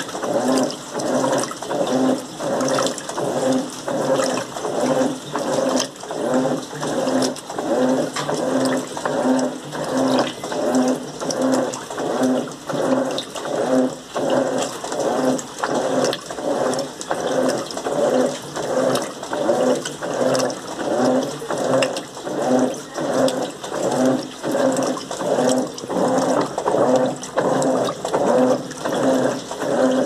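Electrolux Turbo Limpeza LM08 top-loading washing machine agitating a load in water. The agitator swishes back and forth in a steady rhythm, each stroke a surge of sloshing water over the motor's hum.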